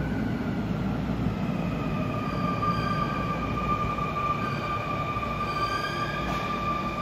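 Sotetsu 21000 series electric train pulling out, its VVVF inverter traction motors giving several whining tones that hold steady or rise slowly as it gathers speed, over a low running rumble that fades.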